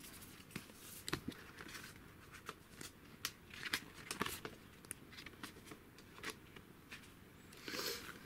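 Paper pages of a thick booklet being flipped through by hand: a run of short, irregular flicks and rustles, with a louder rustle near the end.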